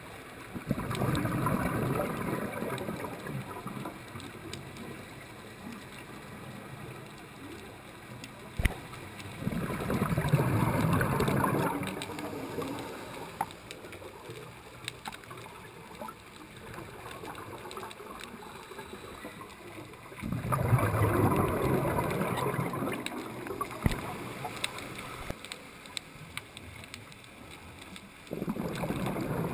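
Scuba diver's exhaled bubbles rushing from the regulator in four long bursts, roughly every ten seconds, heard through the underwater camera housing. A few sharp clicks fall between them.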